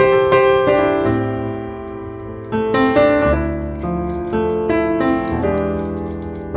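Background piano music: a melody of held notes changing about every half second.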